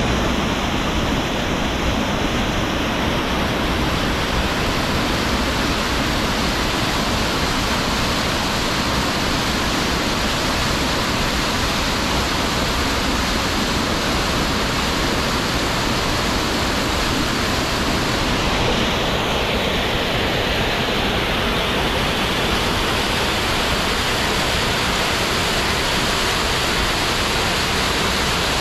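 Steady, even rush of flowing or falling water, unchanging throughout.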